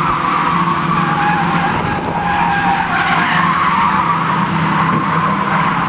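Several banger racing cars running around the track, a loud steady mix of engines with tyres skidding.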